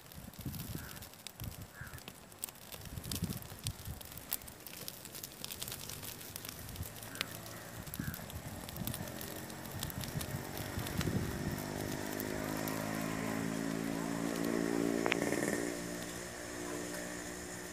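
Dry palm fronds crackling and snapping as they burn in an open fire. From about halfway a motor's steady drone comes in, grows louder and drops off again near the end.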